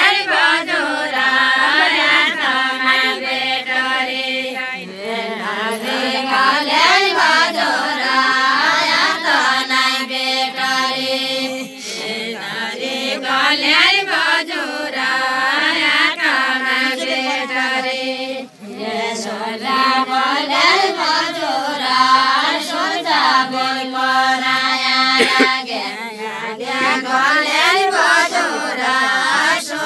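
A group of women singing a Nepali deuda folk song together, unaccompanied, in long drawn-out phrases with gently bending notes, and a brief breath between phrases about two-thirds of the way through.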